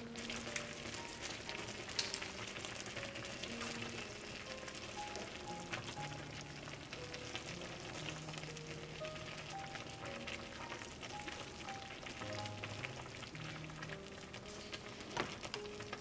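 Ramen broth boiling hard in a Korean earthenware pot (ttukbaegi), a steady crackling bubble, while chopsticks stir the noodles with a few light clicks. Soft background music plays underneath.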